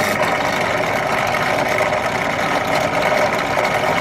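Power drill motor running steadily as a 17/64-inch titanium-coated twist bit drills a hole, fed gently without being forced.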